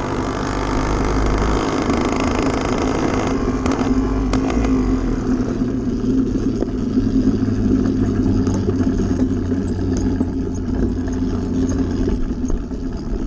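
80cc motorbike engine running at a steady pitch while riding at constant speed.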